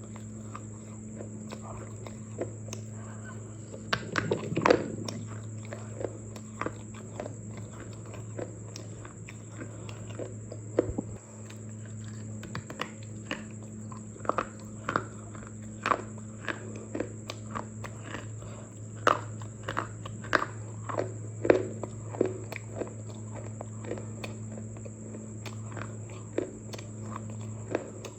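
Irregular crunches and clicks, some in quick clusters, over a steady low electrical hum.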